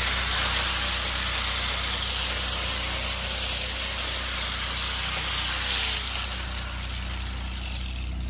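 Angle grinder grinding a weld bead on a steel rod: a steady high whine over a rough hiss. About five and a half seconds in it is switched off and the whine falls steadily as the disc spins down.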